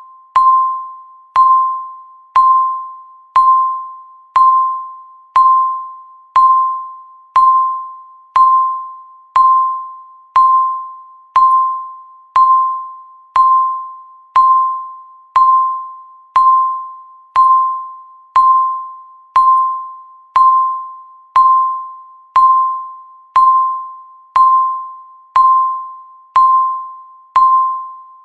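Electronic countdown-timer beep: a single clear, bell-like tone struck once every second, each one starting sharply and fading away before the next, marking off the seconds of the countdown.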